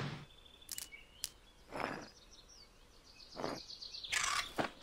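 Cartoon sound effects of a bird's wings flapping: a few short whooshes about every second and a half, then a louder rustling flutter near the end. Faint bird chirps sound behind.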